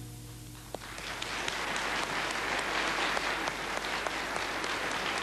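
Studio audience applauding after a song, the clapping breaking out about a second in as the last held note of the string accompaniment dies away, then building to full applause.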